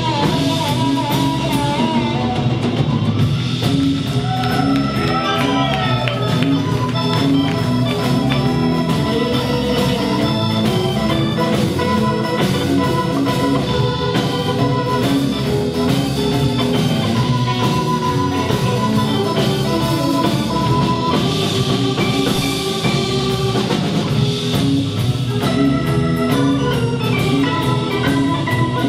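A blues band playing live, an instrumental passage with no singing: drum kit, guitar and organ.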